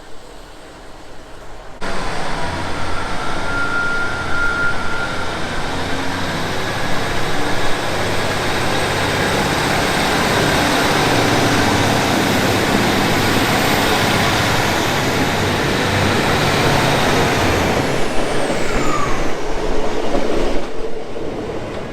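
Train running close by, loud and steady, starting suddenly about two seconds in and dropping away near the end, with a high whine that falls in pitch just before it fades.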